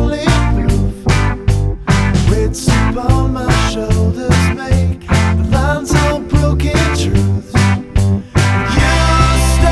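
Rock music with bass, guitar and a steady beat. About eight and a half seconds in, it changes to a fuller, held section.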